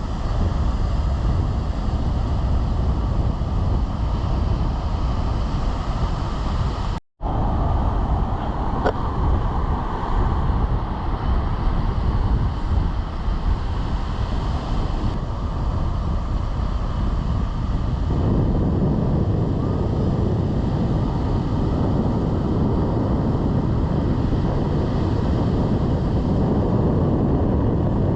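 Atlantic surf with wind buffeting the microphone, a steady rushing noise; the sound cuts out for an instant about a quarter of the way in.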